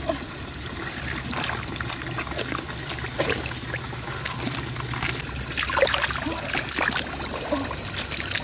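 Hands groping and scooping through shallow muddy stream water, with small trickles, sloshes and squelches of wet mud. A steady high whine sounds over it.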